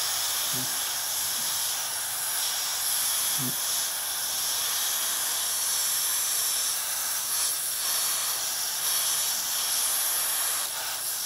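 Aerosol freeze-off penetrating spray hissing steadily through its thin straw nozzle onto a seized stud in a cast-iron engine cylinder. The spray is held on to freeze the stud and get movement in its threads.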